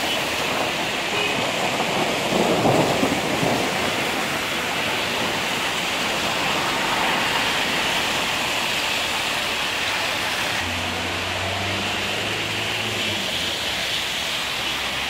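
Thunderstorm: a steady hiss of rain and wind, with a short rumble of thunder about two and a half seconds in. A passing vehicle's engine hums low for a couple of seconds near the end.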